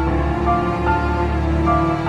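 Background music: a melody of short notes changing a few times a second over a held low tone.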